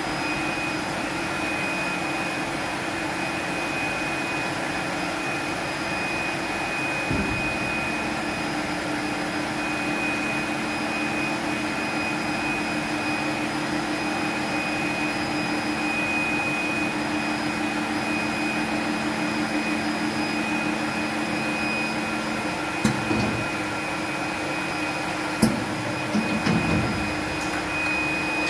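Polar PACE automated paper-cutting line running: a steady rushing machine noise with a constant high whine and a low hum. A second, lower motor tone starts about a quarter of the way in and stops about three quarters through, and a few short mechanical clunks come near the end.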